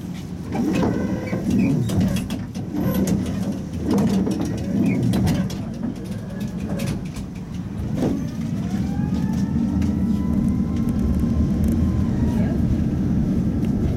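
Interior of a Tatra T3 (MTTCh) tram: knocks and rattles with some faint voices, then a sharp knock about eight seconds in. A rising whine from the traction drive follows as the tram accelerates and levels off after a few seconds, over a steady running rumble.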